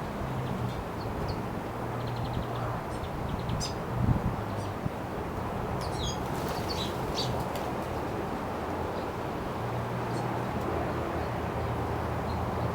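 Backyard birds chirping in short, high, scattered calls, busiest around the middle, over a steady wash of wind noise and a low steady hum. A brief low thump about four seconds in.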